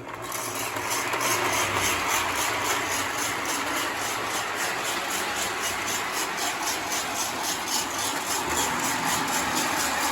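MPC-era Lionel toy steam locomotive and tender running on the track, its motor and wheels rumbling as it gets going in the first second. A bead-filled roller under the tender makes a fast, even rattle as the train rolls.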